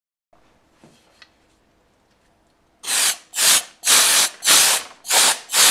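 A can of compressed air hissing out in short blasts, about two a second, to blow dust out of an open laptop's keyboard bay. Faint handling noise and a light click come before the first blast.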